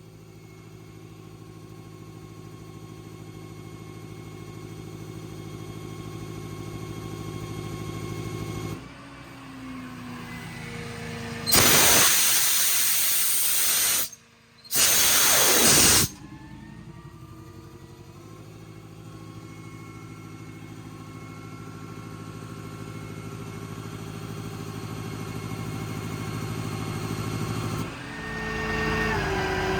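Truck-mounted VanAir RC40 air compressor running with a steady hum that slowly grows louder, then stopping. After a pause come two loud hisses of compressed air being let out, with a short break between, and the compressor then runs again and stops again.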